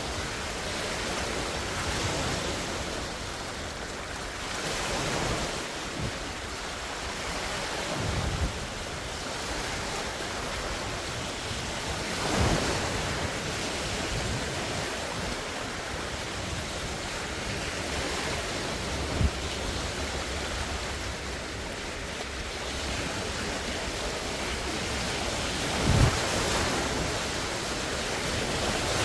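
Large waves from a wind-whipped lake breaking and splashing on the shore: a continuous, swelling wash of surf. Strong wind rumbles on the microphone, with a few brief low thumps.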